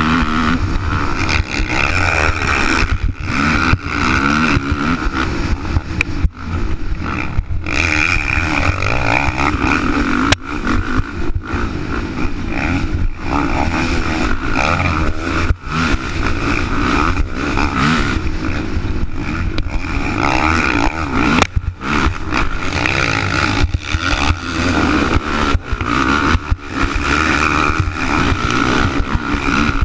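Racing ATV engine running hard at high revs, the throttle chopped and reopened again and again, with frequent brief dips in loudness.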